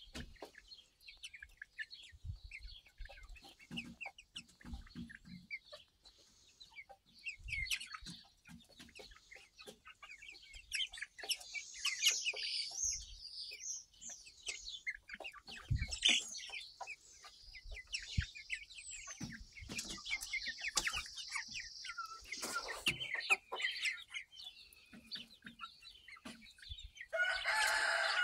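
A flock of young backyard chickens, about two to three months old, clucking and peeping as they feed, the calls short and scattered. A louder, longer call rises over them near the end.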